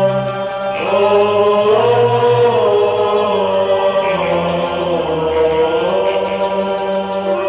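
Arabic religious nasheed: a slow, gliding chanted vocal melody over steady held tones, the voice coming in about a second in.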